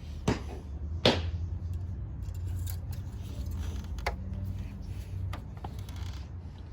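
A metal oil dipstick being handled and pushed back into its tube: two sharp metallic clicks about a second apart, then a few lighter ticks and rattles over a steady low hum.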